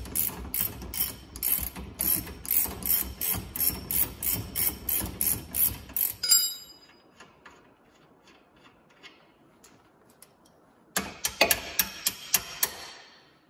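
Hand ratchet wrench clicking in quick, even strokes, about three a second, as the lower rear shock bolt is undone. A short metallic ring comes about six seconds in. After a quiet spell, a second, shorter run of ratcheting comes near the end.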